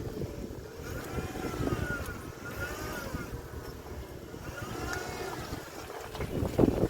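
Wind buffeting the microphone: a steady low rumbling noise with gusts.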